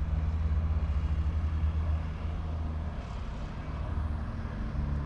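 A vehicle engine running steadily, a low rumble with a held drone.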